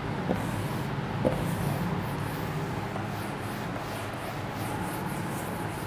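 Whiteboard duster rubbing across the board in wiping strokes, a soft swishing over a steady low room hum, with a couple of faint ticks in the first second or so.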